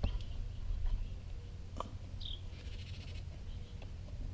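One faint, short, high peep from songbird nestlings as a finger prods their grass nest, with a faint rustle of the dry grass. A single sharp click comes about two seconds in, over a steady low rumble.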